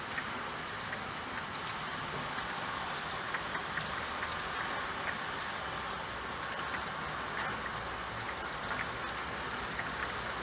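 Steady rain falling, a continuous hiss with scattered small drop ticks.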